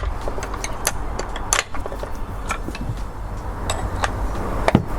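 Scattered light clicks and taps of tools and small parts being handled on a workbench, over a low steady rumble.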